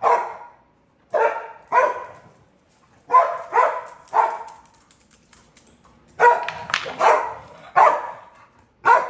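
A dog barking loudly in short runs of two or three barks, about ten in all, with brief pauses between the runs. It is barking up at its owner, demanding the food she has just offered.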